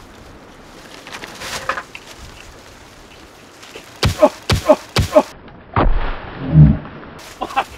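Wood being struck and dropped during firewood cutting: four sharp, ringing knocks about a third of a second apart, then a heavy, deep thud.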